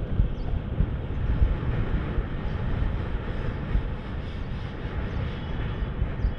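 Wind buffeting an action camera's microphone during a bicycle ride, a steady rumbling rush with road noise underneath.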